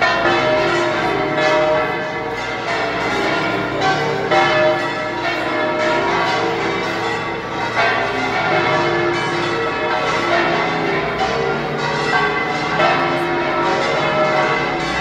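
The bells of La Giralda, the bell tower of Seville Cathedral, pealing loudly. Several bells of different pitches are struck over and over, their tones overlapping in one unbroken peal.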